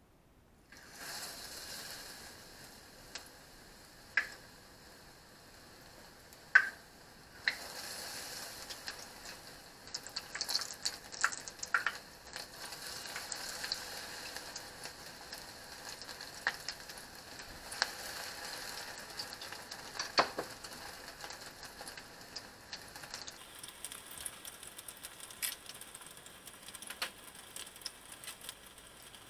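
Battered onion and Spam pieces deep-frying in hot oil: a steady sizzle dotted with sharp crackles and pops. The sizzle starts about a second in and grows louder about seven seconds in, with the sharpest pop at about six and a half seconds.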